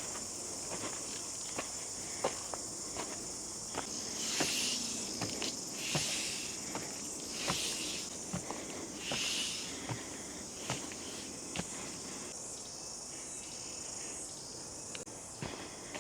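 Footsteps walking along a bush track, a step roughly every half to three-quarters of a second, over a steady high-pitched insect chorus. A few louder, brief rustles come between about four and nine seconds in.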